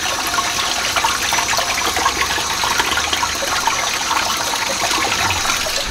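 Kitchen tap running steadily, the stream splashing into a basin of water in the sink.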